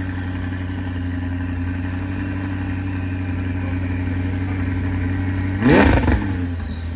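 McLaren 600LT's twin-turbo V8 idling steadily on new spark plugs and coil packs fitted to cure a misfire. Near the end it gives one quick rev that rises and falls, followed by a falling whine.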